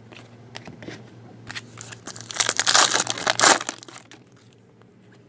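Foil trading-card pack wrapper being torn open and crinkled: a dense burst of rustling for about two seconds, loudest around the middle, with light clicks and taps of handled cards before it.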